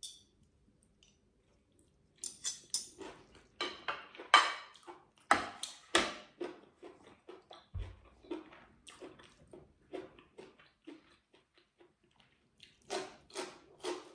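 Close-miked eating sounds: a metal spoon and fork clinking and scraping on a ceramic plate, and chewing, heard as a run of short clicks and crunches that starts about two seconds in and pauses briefly before the end.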